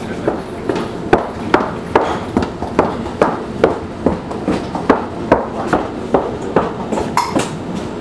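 Rhythmic knocking from a moving passenger train's running gear, heard from inside a type 136A second-class coach, about two and a half knocks a second at an even pace over a steady rumble.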